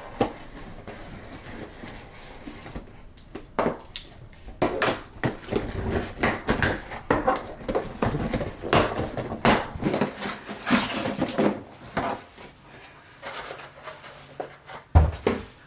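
A cardboard box being opened and its packaging handled: irregular rustling, scraping and knocking, with one heavy thump near the end.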